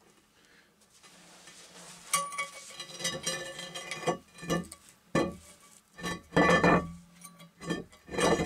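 Small metal manhole cover being pulled shut from below and settling into its ring: a sharp clank about two seconds in, then a run of scraping knocks and clanks with a ringing metallic tone, the loudest about two thirds of the way through.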